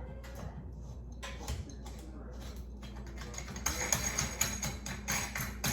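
Background music with a percussive beat that fills out about three and a half seconds in, with a tambourine-like shimmer, over scattered light clicks and knocks.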